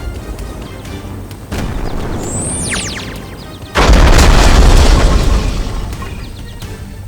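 Background music with a whistle sliding down in pitch, then a sudden heavy boom about halfway through that dies away over a couple of seconds.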